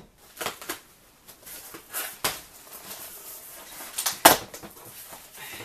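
Cardboard shipping box being opened by hand: scattered crackles, scrapes and knocks from its flaps and packing tape, with the loudest knock about four seconds in.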